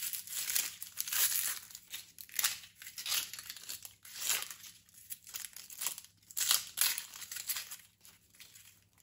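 Dry papery onion skin crackling and tearing as it is peeled off a yellow onion with a kitchen knife, in a string of short, irregular rustles.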